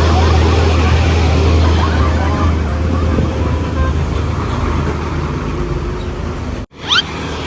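Road traffic with a heavy vehicle's engine rumbling steadily by. It cuts off abruptly about a second before the end, followed by a short rising whistle-like sweep.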